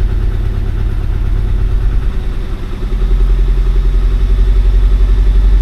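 1988 Saab 900 Turbo's four-cylinder engine idling just after a hard start. It dips briefly a little past halfway, then settles into a steadier, louder idle.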